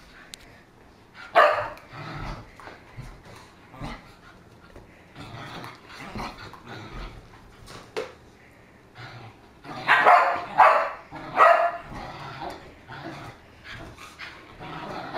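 Dogs barking: one loud bark about a second in, then three barks in quick succession about ten seconds in, with quieter short sounds between.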